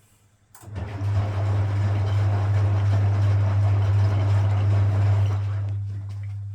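Frigidaire Super Deluxe Automatic 50 front-loading washing machine starting up about half a second in with a loud, steady low hum and rushing water, which eases off near the end as the machine works through a rinse.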